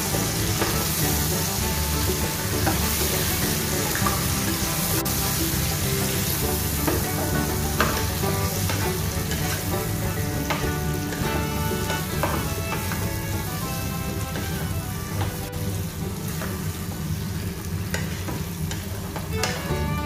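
Mutton pieces and onions sizzling as they fry in oil in a pot, stirred continuously with a spatula that scrapes and knocks against the pan now and then.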